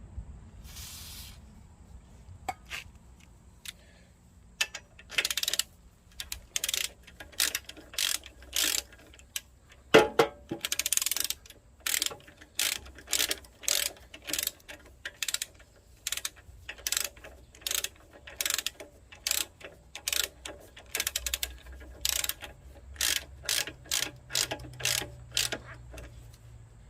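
Ratchet wrench working a fastener on a small engine: short clicking strokes repeated about one or two a second, with one heavier knock about ten seconds in.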